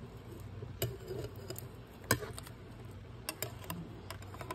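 Scattered sharp clicks and ticks, about seven of them, the loudest about two seconds in and several close together near the end, over a steady low hum.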